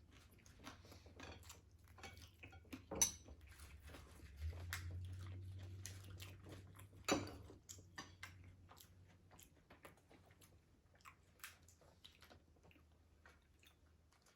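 Close-up chewing and crunching of crispy fried food, with many small crackles and two sharper clicks. A low steady hum runs underneath, louder from about four seconds in until about nine.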